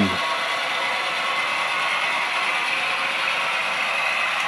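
Kato N-gauge diesel locomotives running, their factory-installed ESU LokSound decoders playing diesel engine sound through small onboard speakers, mixed with the whirr of motors and gears: a steady, thin mechanical hum with no deep tones.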